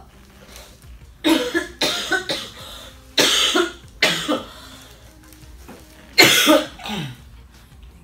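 A woman's chronic cough: a harsh coughing fit in short clusters, several coughs in the first half and a last, loudest one about six seconds in.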